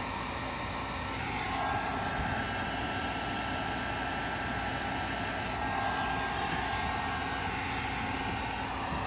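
Corded heat gun running, its blower a steady whoosh with a faint whine as hot air is played over wire splices, growing a little louder about a second and a half in.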